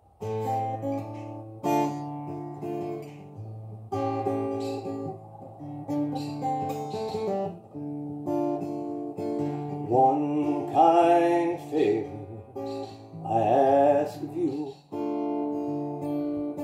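Solo acoustic guitar playing a slow blues intro: picked chords and single notes, a fresh attack every second or two, with a few notes that bend in pitch.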